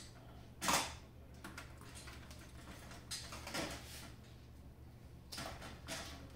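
A few short clicks and knocks of plastic cuff hoses and connectors being handled, with faint rustling between. The sharpest click comes under a second in, and softer ones follow about halfway through and near the end.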